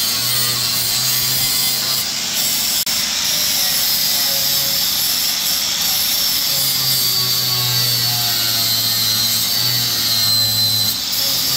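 A power tool running under load, with a high whine that wavers in pitch over a low hum that comes and goes.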